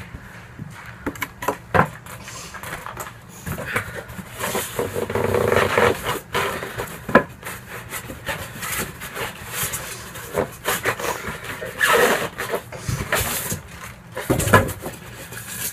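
Cardboard box and packing pieces being handled: irregular rubbing, scraping and rustling with scattered knocks as parts are pulled out of the box.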